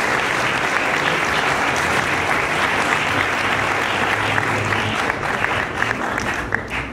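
Crowd applauding with dense, steady clapping that thins out into a few separate claps near the end.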